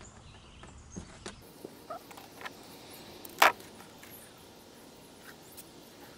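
Small clicks and rustles of hands handling fireworks fuse and a multitool, with one sharper click about three and a half seconds in.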